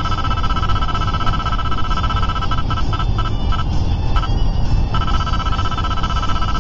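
Passport 9500i radar detector sounding its Ka-band alert, a rapid high beeping that signals Ka-band police radar ahead. It breaks up and stutters for a couple of seconds midway and comes back steady about five seconds in, over steady road noise inside the car.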